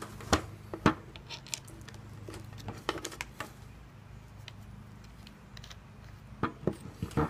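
Scattered small metallic clicks and taps as a corded drill's chuck is loosened and the filed copper soldering-iron tip is pulled out of it, a cluster in the first few seconds and a few more near the end, over a steady low hum.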